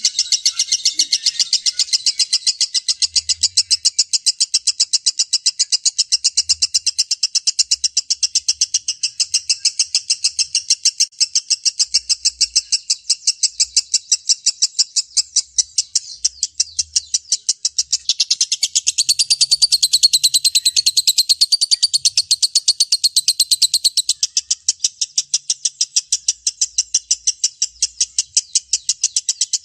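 Lovebird giving its long 'ngekek' call: an unbroken string of rapid, high-pitched chattering notes, several a second, without a pause. About two-thirds of the way through, a smoother warbling twitter joins for a few seconds.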